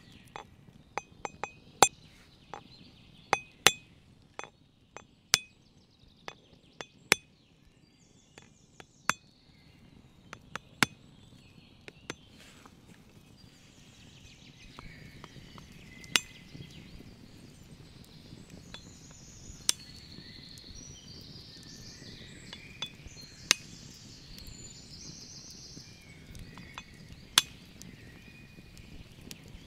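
A heavy knife blade tapped against the shell of an ostrich egg, making sharp clinks with a short metallic ring. The taps come irregularly, in quick clusters through the first dozen seconds, then as a few spaced single strikes.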